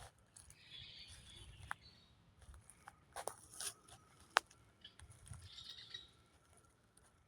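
Faint bird chirping in two short spells, with a few sharp clicks or snaps in between, the loudest a little past the middle.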